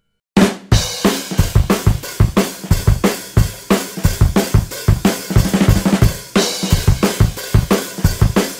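Background music: a fast, driving drum-kit beat with rock backing, starting after a short silence about a third of a second in.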